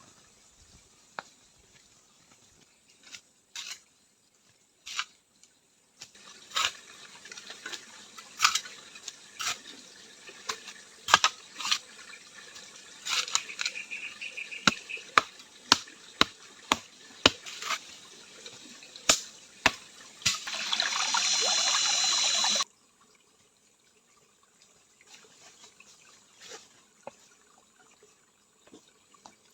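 Water trickling and dripping with many scattered sharp clicks and ticks. A louder rush of water for about two seconds, two-thirds of the way in, stops abruptly.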